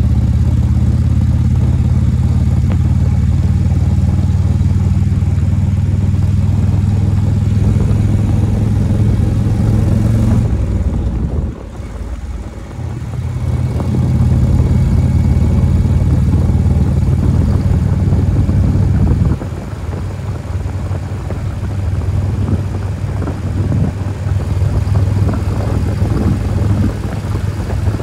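Indian motorcycle's V-twin engine running steadily at cruising speed, with wind and road noise. The sound drops briefly about eleven seconds in and eases down again near twenty seconds.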